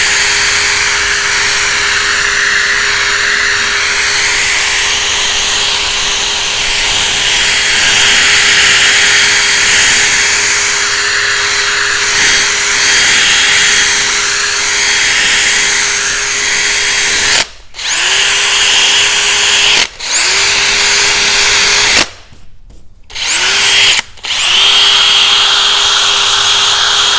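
Cordless drill spinning a 500-grit sanding disc on a plastic headlight lens: a steady motor whine over a sanding hiss. Near the end the drill stops four times in quick succession, and each time the motor winds back up to speed.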